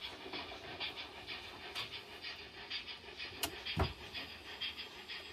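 Model railway turntable and locomotive mechanism running: a soft, rhythmic whirring pulse repeating a few times a second, with a sharp click and then a thump a little before four seconds in.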